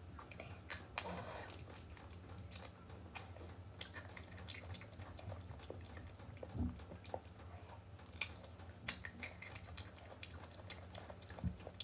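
Close-up chewing and crunching of raw green mango: crisp bites and wet mouth clicks and smacks at irregular moments, over a low steady hum.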